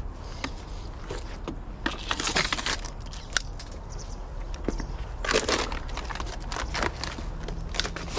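Dry rustling and crackling of bush branches and litter being handled with a litter-picker grabber, with scattered small clicks and two louder scrunching bursts about two and five seconds in.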